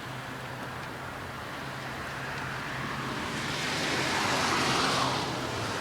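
Gusty storm wind rushing, swelling about three seconds in and easing near the end, over a steady low hum.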